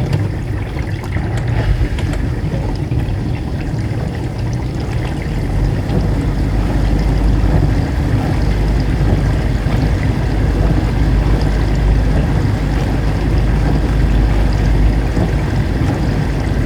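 Dishwasher running: water spraying and sloshing inside the tub over a steady low rumble, a little louder from about six seconds in.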